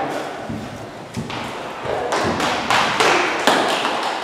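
Footsteps of several young children running and stepping onto a hard tiled floor: a quick, uneven series of thumps and taps that picks up about a second in.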